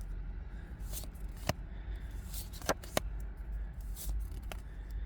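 Trading cards from a freshly opened Pokémon booster pack being slid and flipped through in the hand, giving a few sharp soft clicks and snaps over a steady low hum.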